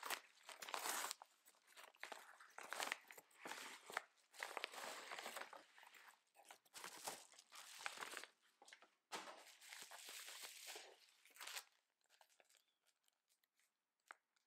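A white paper mailer envelope being torn open by hand and its bubble-wrapped contents pulled out: tearing, crinkling and rustling of paper and plastic packaging in short, irregular bursts. It dies down to a few faint handling ticks for the last couple of seconds.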